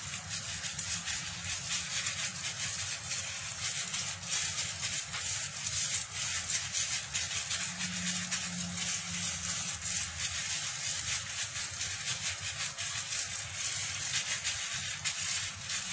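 Gloved hands kneading sliced chicken breast in a wet marinade: irregular squishing and small clicks of meat, liquid and plastic glove, over a steady hiss.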